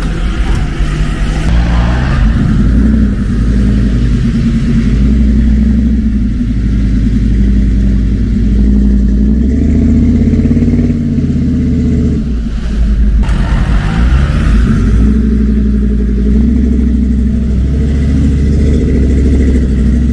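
Engines revving hard under load, the pitch rising and falling, with a brief drop about twelve seconds in: a Dodge Ram 1500's 5.7 Hemi V8 stuck in swamp mud while a UAZ pulls it out on a tow strap.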